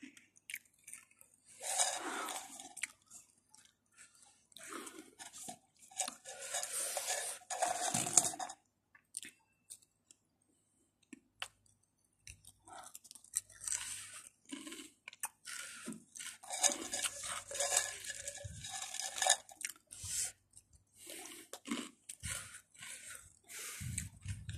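Close-up chewing and crunching of broken Mamee Ghost Chili Pepper black potato crisps, in irregular bouts with short pauses and a longer pause about ten seconds in.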